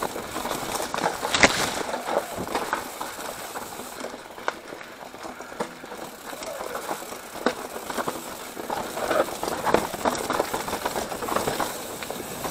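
Mountain bike riding down a rough dirt trail: tyres rolling over dirt and roots, with the bike rattling and knocking over bumps, and one sharp click about a second and a half in.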